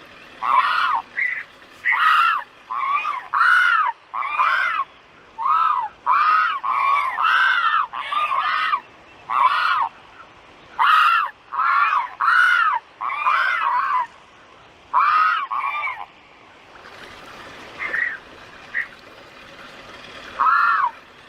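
A large bird honking over and over, each call a short honk that rises and falls in pitch. It comes in a quick, steady run of calls, then thins to a few scattered honks near the end.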